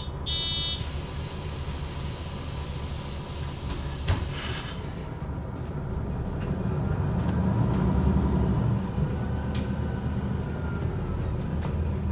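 Inside a city bus: a pulsed electronic door warning beep at the very start, a burst of air hiss about three to four seconds in, then the bus's drive rumbling louder as it pulls away.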